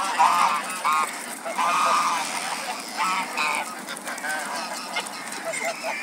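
A flock of domestic geese honking, with about six short calls in quick succession from several birds.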